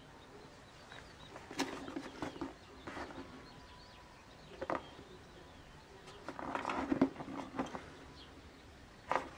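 Cardboard box handled and turned over in the hands: scattered light clicks and scuffs, with a louder rustle about seven seconds in.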